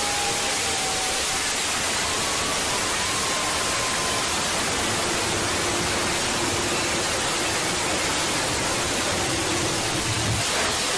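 Loud, steady static-like hiss filling every pitch, a made-up noise sound effect, with a few faint held tones showing faintly through it.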